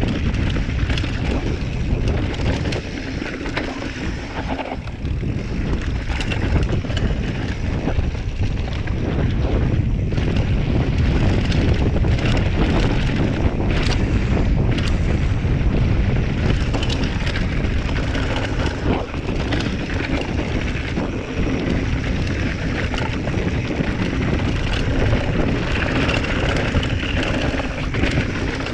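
Wind buffeting the action camera's microphone during a fast descent on a 2018 Giant Trance 3 full-suspension mountain bike. Tyres roll over a dirt trail, and the bike gives frequent knocks and rattles over bumps.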